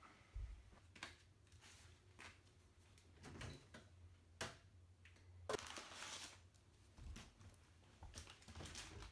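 Faint footsteps and scattered light knocks on a wooden floor in a quiet room, with a brief rustle about halfway through.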